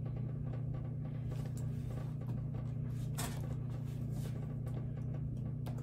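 Steady low hum of room tone, with a few faint clicks of hand tools being handled.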